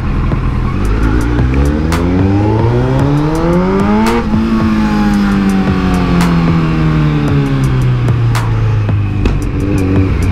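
Kawasaki Z900's inline-four engine under way. Its revs climb smoothly for about three seconds, then fall away slowly over the next four and settle to a low, steady note.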